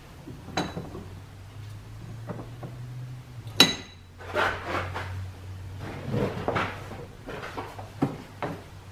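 Metal clinks and scrapes as a steel Clipper belt lacer is handled in a cast-iron bench vise, with one sharp, ringing clink a few seconds in and a couple of short clicks near the end. A faint steady low hum runs underneath.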